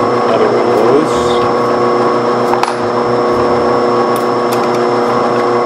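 Small motor-driven bench machine running steadily, its vertical reciprocating file or blade cutting a small steel frame part held by hand, with a brief scrape just under a second in and a sharp click about two and a half seconds in.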